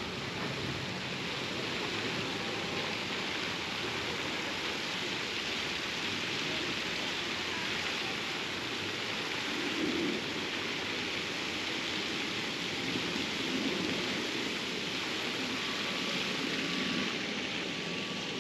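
Steady rushing noise of the kind falling or splashing water makes.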